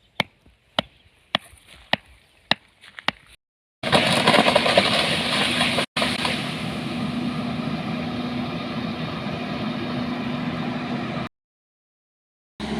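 About eight sharp knocks in the first three seconds, then a steady engine running loudly for about seven seconds, cutting off abruptly.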